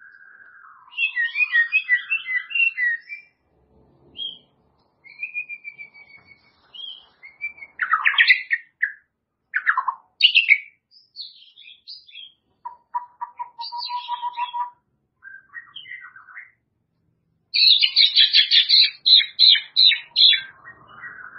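White-rumped shama (murai batu) singing: varied phrases of clear whistles, swooping pitch glides and fast chattering runs, with short pauses between them. The loudest parts are a rapid chattering run about a second in and another near the end.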